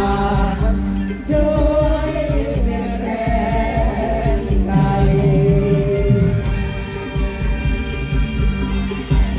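Live mor lam phloen music: a band with a steady heavy beat under a melody, with singing.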